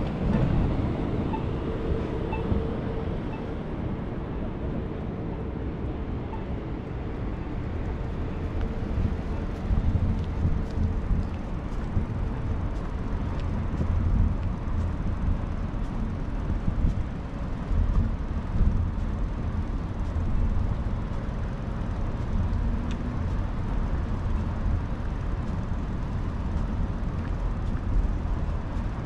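Street noise during a bike ride: a low rumble of wind on the microphone mixed with traffic. A steady hum runs under it and stops about twelve seconds in.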